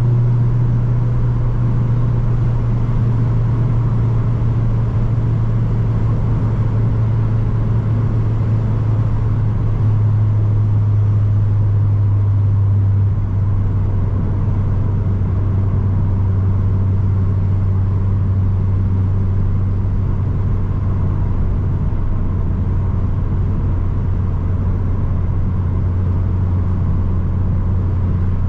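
Opel Astra G Bertone's 2.0 turbo four-cylinder engine running steadily under way, a constant low drone that drops slightly in pitch about halfway through.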